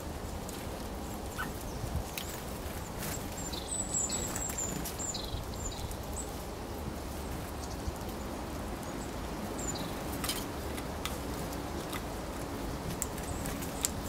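A small songbird giving a quick series of high, thin calls about four seconds in, with a few single high notes and faint clicks later, over a steady low background rumble.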